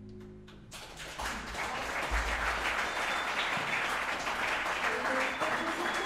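Audience applauding: a few scattered first claps, then full applause about a second in that keeps going steadily.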